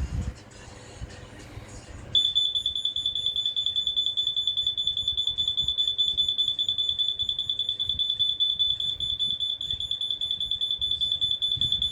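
Smoke alarm sounding on test: a loud, steady, high-pitched electronic tone that starts about two seconds in.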